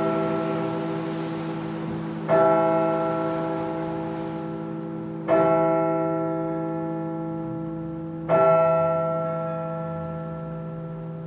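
A church bell tolling slowly: three strikes about three seconds apart, each ringing on and fading before the next.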